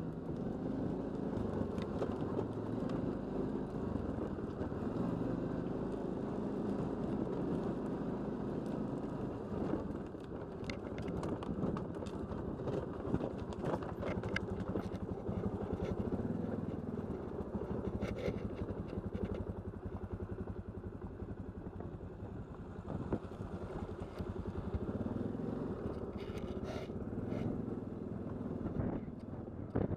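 All-terrain vehicle engine running at low, slightly varying revs while riding down a dirt track, with scattered knocks and rattles from the rough surface.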